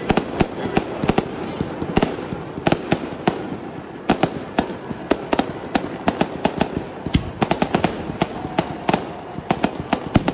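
Fireworks display: a rapid, irregular string of sharp pops and bangs, several a second, from aerial shells and rising comets.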